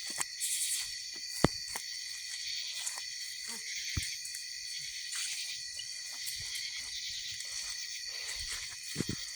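Steady chorus of insects, a few high tones held throughout, with scattered sharp snaps and clicks; the loudest snaps come about a second and a half in and about four seconds in.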